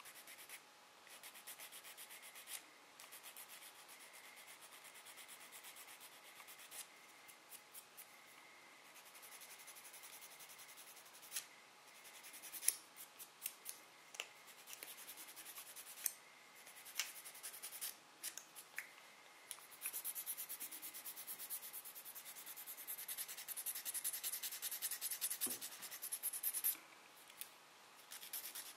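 Nail file rasping back and forth over the tip of a hardened flour-built artificial nail in quick, short strokes, with a few small clicks; the filing gets louder for a stretch in the last third.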